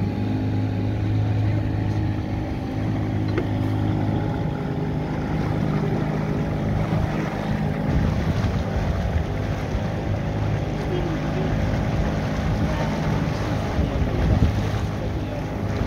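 A boat's engine running at a steady speed, holding one even pitch throughout, with the wash of water alongside.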